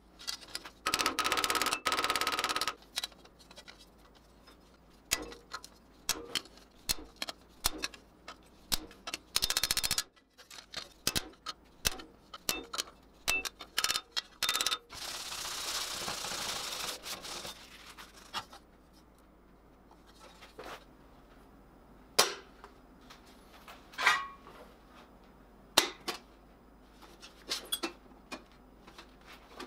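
Small hammer peening steel rivets that fix a hinge to a steel helmet: irregular sharp metallic taps, with a few longer stretches of steady noise in between.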